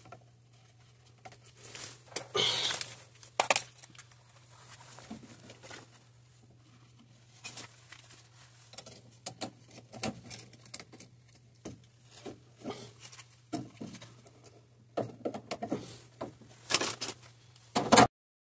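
Gloved hands handling wires and a tool at a furnace control board: irregular rustles, clicks and small knocks over a steady low hum. The sound stops suddenly shortly before the end.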